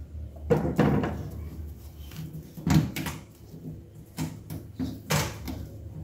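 Scattered knocks and clunks from work at the back of a front-load washing machine, sharpest about half a second in, around three seconds and just after five seconds, over a steady low hum.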